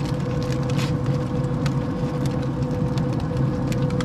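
Steady hum of a Traeger pellet grill's fan motor running, with a few faint ticks and crinkles as the foil-wrapped meat and thermometer probe are handled.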